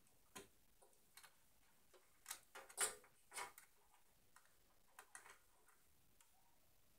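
Scattered small clicks and taps of desktop computer parts being handled, a cluster of them in the middle with the loudest about three seconds in.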